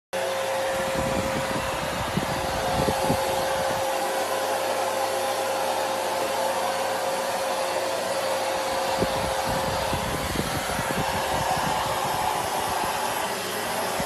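Vacuum cleaner running steadily, a continuous motor whine with a steady tone, and a few soft knocks along the way.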